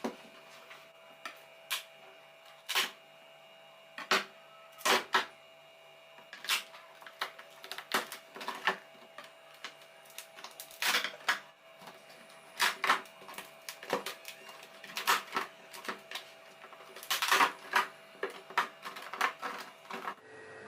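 Irregular sharp clicks and taps of kitchen utensils on hard surfaces, some in quick pairs, over a faint steady hum.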